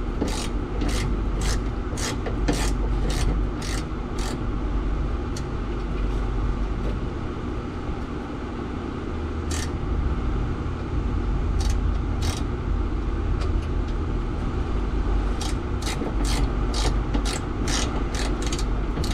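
Socket ratchet clicking in evenly spaced runs of about two clicks a second as a bolt is loosened, with a pause in the middle, over a steady low rumble.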